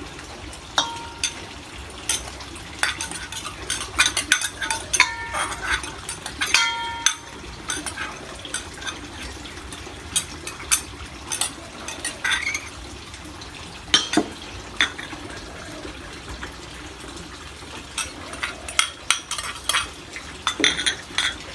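A metal ladle clinking against small ceramic bowls and a stainless steel mixing bowl as ingredients are scooped and tipped in: irregular sharp clinks throughout, a couple of them ringing on briefly.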